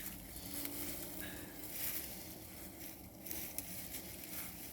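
Faint rustling and crackling of sweet potato vines and wood-chip mulch being pulled and dug through by hand.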